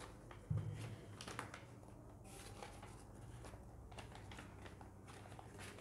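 Paper ballots being handled at the count, with light rustling and crackling and scattered sharp ticks, and a low thump about half a second in.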